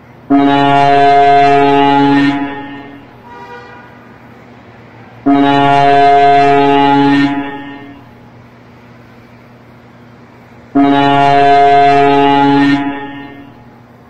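Big truck's air horn blown in three long blasts, each about two seconds, a few seconds apart, over a steady background of highway traffic noise.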